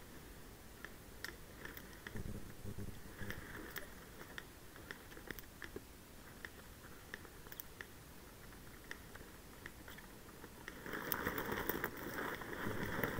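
Leaves and branches rustling, with dry twigs snapping and crackling in scattered sharp clicks, as someone pushes through dense scrub. The rustling gets louder and thicker near the end.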